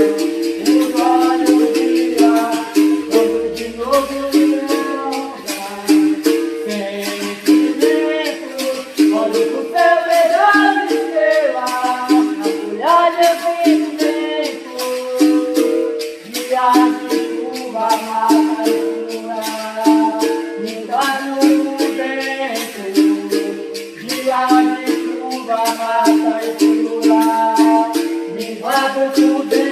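Capoeira music: berimbau notes over the shaking of caxixi rattles, keeping a quick, even rhythm.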